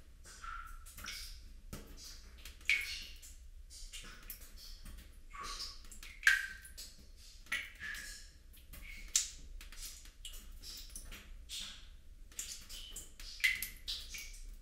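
Sparse light clicks and taps, some with a brief high ringing ping, coming irregularly every second or two; the sharpest is about six seconds in.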